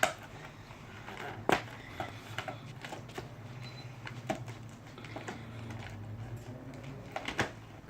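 Toy packaging being opened by hand: scattered clicks, crackles and taps, with a sharper snap about a second and a half in and another near the end, over a steady low hum.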